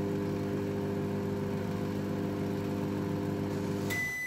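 Microwave oven running with a steady hum that cuts off about four seconds in as its countdown reaches zero, followed at once by a high-pitched beep signalling the end of the heating cycle.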